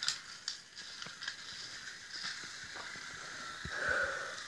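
Thomas the Tank Engine toy train on wooden toy railway track, with a few light clicks and knocks scattered through as it moves along.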